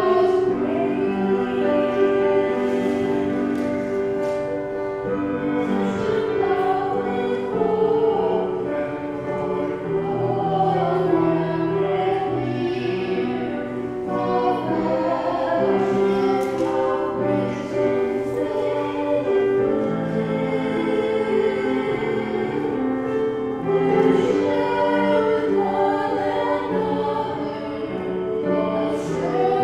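A small group of singers singing a hymn, accompanied by piano.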